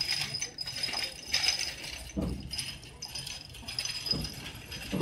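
Passenger train carriage rattling and jangling as the train pulls slowly out of the station, with a couple of low knocks from the running gear.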